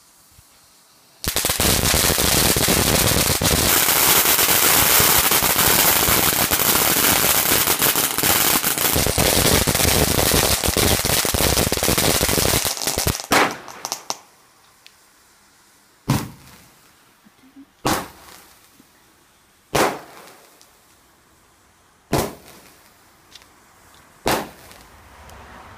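Standard Fireworks 'Base Jump' fountain mine: about a second in, the fountain ignites and sprays sparks with a loud, steady hiss for about twelve seconds, then cuts off. A sharp bang follows, then five more loud shots about two seconds apart.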